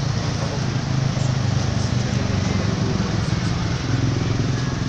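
Slow, dense road traffic passing close by: cars, motorcycles and a flatbed tow truck crawling past with their engines running, a steady low hum.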